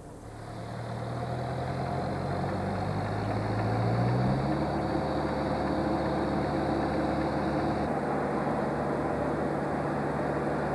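Street-sweeping machine switched on and making a lot of noise: its engine speeds up over the first four seconds or so, then runs steadily. A thin high whine over it stops about eight seconds in.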